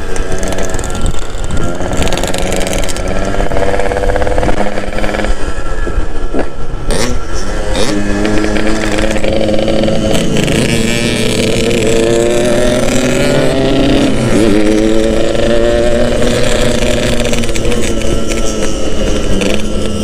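Yamaha RX-King two-stroke single-cylinder motorcycle engine under way, its note climbing through the revs, dipping sharply about two-thirds of the way through and climbing again, with wind rushing over the rider-mounted microphone.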